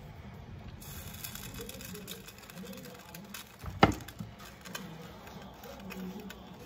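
A single sharp knock about four seconds in as a spatula is put down after stirring a skillet of gravy, over faint background voices.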